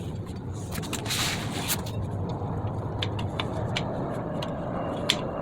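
Scattered small metallic clicks and a brief scrape about a second in as drum brake hardware is handled, over a steady low background rumble of a passing vehicle that swells slightly near the end.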